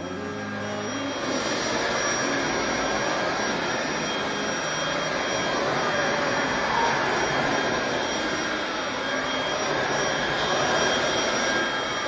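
eufy HomeVac S11 Lite cordless stick vacuum running with its floor brush on a rug: a steady rushing suction hiss with a high, even motor whine. It swells up over the first second or so and then holds steady.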